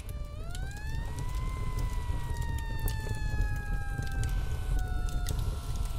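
A siren, likely a sound effect over the intro title card, winding up in pitch over about a second, then falling slowly and steadily. Underneath are a steady low rumble and scattered sharp clicks.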